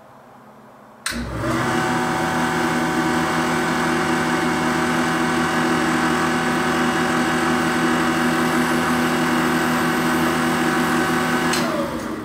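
Snap-on VR300 valve grinder's electric motor switched on with a click about a second in, running at a steady hum with several constant tones, then switched off with a click near the end and winding down, its pitch falling.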